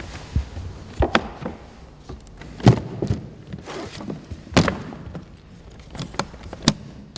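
Irregular knocks and thuds of packages of fireworks being handled and packed into a suitcase.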